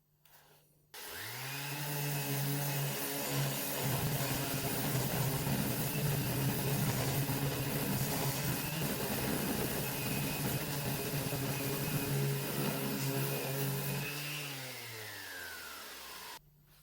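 Electric power sander sanding the wooden parquetry tabletop, with fine-grit paper taking off the old finish. The motor spins up about a second in, runs steadily with a gritty scrubbing over its hum, then winds down and stops near the end.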